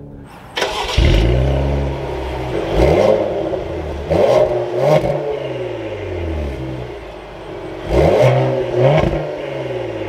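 2024 Cadillac CT5-V's 3.0-litre twin-turbo V6 starting up, its revs flaring as it catches about a second in. It then idles and is revved about five times in short blips, the pitch climbing and falling each time.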